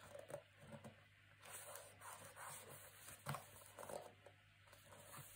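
Near silence with faint rustling and a few soft taps of black card being handled and pressed into place on an album page, the loudest tap about three seconds in.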